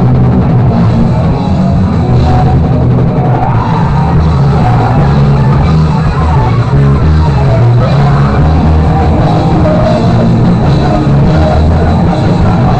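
Live rock band playing very loud, with a drum kit and electric guitars.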